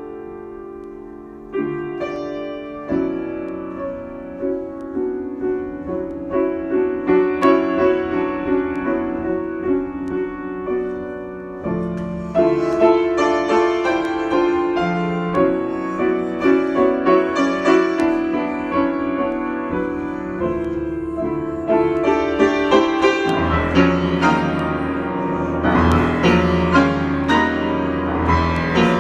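Solo piano improvisation: a continuous run of chords in the middle register with melody notes above. The playing gets fuller and louder about halfway through, then adds heavier bass notes near the end.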